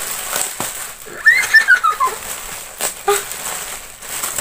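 Plastic packaging crinkling and rustling as a ring light is unwrapped from its box. About a second in comes a short high squeal that falls in pitch.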